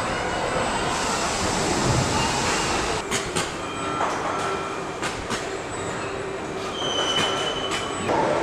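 Car body-shop machinery running: a steady mechanical din with short high whines at several pitches. From about three seconds in there are a series of sharp metallic clicks and clanks, such as clamping fixtures closing.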